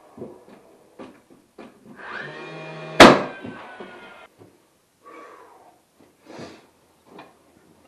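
Light knocks and handling clatter, with one sharp bang about three seconds in. The bang sits inside a brief pitched sound lasting about two seconds.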